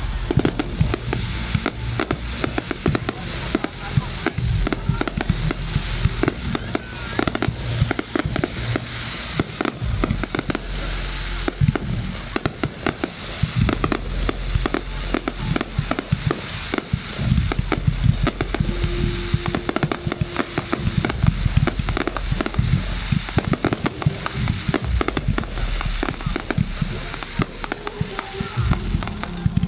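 Aerial fireworks display: a dense, unbroken barrage of bangs and crackling bursts going off in rapid succession.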